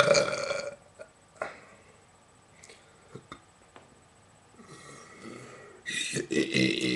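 Loud burps: one tails off in the first second, a few faint clicks and a pause follow, and a long burp begins about a second before the end.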